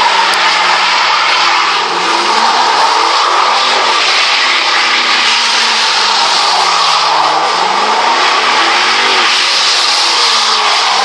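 Camaro LS1 V8 revving hard, its pitch rising and falling again and again, under an unbroken screech of rear tyres spinning as the car slides through a smoky donut.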